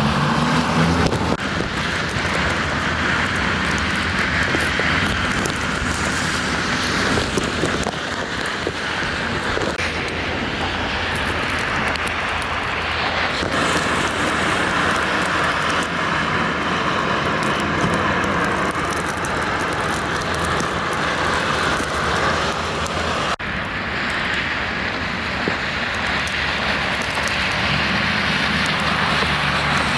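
Loud, steady rushing noise under a low hum, broken by an abrupt cut about 23 seconds in.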